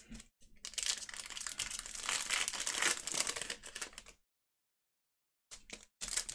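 Foil wrapper of a Panini Mosaic retail trading-card pack crinkling as it is torn open and handled, a dense run of crackles and clicks. It stops for about a second near the end, then the crinkling starts again.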